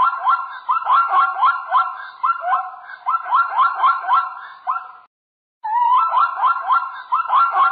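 Plains zebra barking: a long series of quick yelping calls, each a short rising yip, about three or four a second. It breaks off for about half a second some five seconds in, then starts again.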